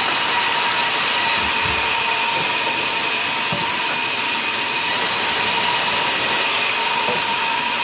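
Large sawmill band saw running steadily: a constant high whine over a loud hiss.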